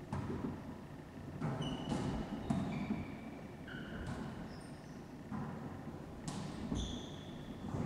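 Wallyball rally: a rubber volleyball is struck sharply about six times, in pairs roughly half a second apart, over a low steady rumble of play. Short high squeaks follow several of the hits.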